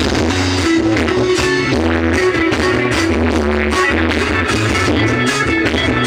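Loud pop-rock song with drums, bass and guitar playing through a small home sound system being tested.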